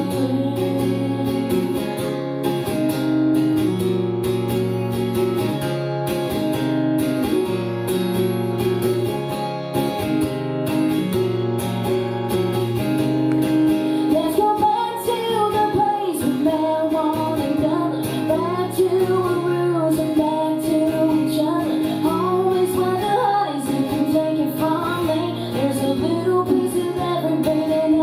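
Live female vocalist singing a song with acoustic guitar accompaniment; the guitar chords hold steady through the first half, and the sung melody comes to the fore from about halfway.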